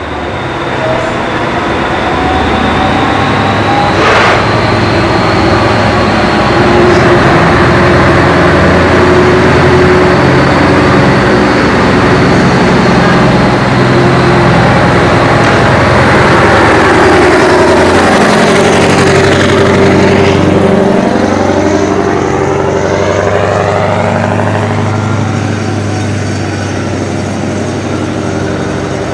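Open-piped V8 Scania truck engines running loudly as the trucks drive through a concrete underpass. About two-thirds of the way through, the engine notes sweep up and down as the trucks rev and pass. A single sharp knock sounds about four seconds in.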